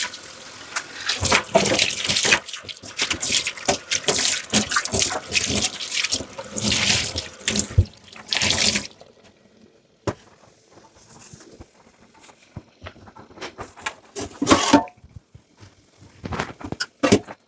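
Water running and splashing in a kitchen sink as dishes are washed, with quick clatters. The running water stops about halfway through, leaving a few scattered knocks and two brief splashes near the end.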